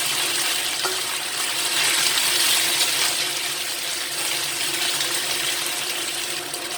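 Pork spare ribs sizzling steadily in hot oil in a frying pan over medium heat, with a few faint crackles.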